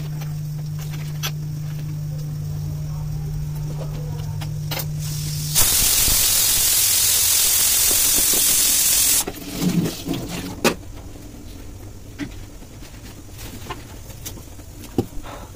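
Kitchen tap running hard into a steel pot in the sink, a loud rushing hiss for about three and a half seconds that stops suddenly, followed by a few clatters of the pot being handled. Before it, a steady low hum.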